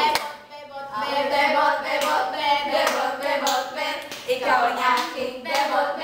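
Several girls singing together, with hand claps breaking in now and then.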